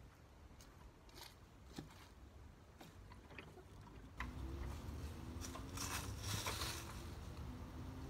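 Quiet clicks, scrapes and crunchy rustles as the Ryobi leaf vacuum's plastic tube and cloth collection bag are handled, with the motor not running. About four seconds in, a low rumble and louder rustling come in.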